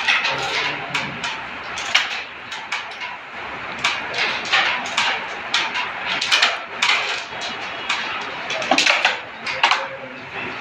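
Wooden carrom pieces clicking: the striker flicked into the coins, and coins knocking against each other and the board's frame. The clicks are sharp and come at irregular intervals, several close together in places.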